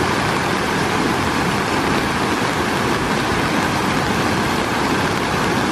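Swollen mountain river rushing steadily, running high with rainwater.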